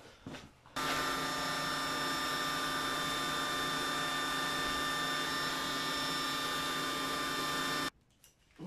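Loud, steady machine whine and hiss with several constant tones, starting abruptly about a second in and cutting off abruptly shortly before the end.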